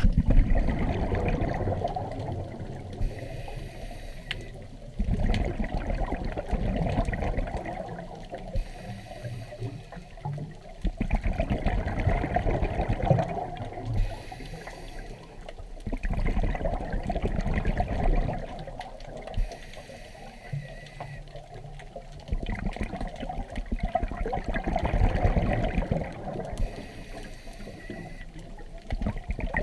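Scuba diver breathing through a regulator underwater: a hiss on each inhale, then a rumbling rush of exhaled bubbles, repeating about every five to six seconds.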